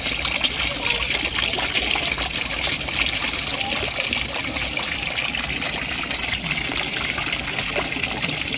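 Water running steadily, a continuous flow with a splashing hiss.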